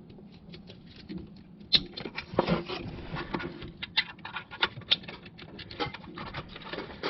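Quick, irregular small clicks and rattles of hands fitting a plastic wiring clip onto an O2 sensor's wiring harness, with a sharper click nearly two seconds in.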